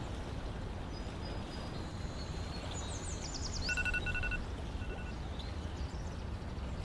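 Outdoor ambience: a steady low rumble with birds calling over it. There is a quick run of high sweeping notes about three seconds in, then short bursts of rapid, evenly repeated pips.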